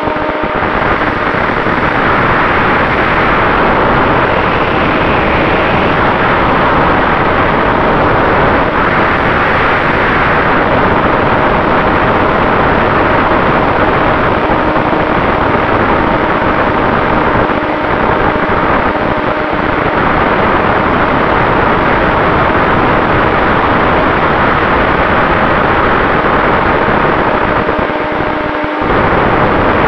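Steady rush of wind and the hum of an RC plane's electric motor and propeller (Turnigy 3536 1000 kV brushless outrunner), heard through a camera mounted on the plane in flight. The sound dips briefly near the end.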